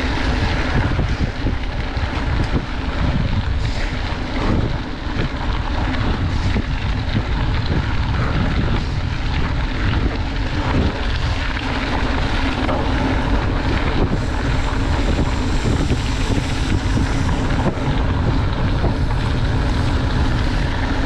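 Wind rushing over the microphone of a camera riding on a mountain bike moving at speed, over the steady rumble of its tyres on a gravel track, with frequent small knocks and rattles from the bike as it jolts over the surface.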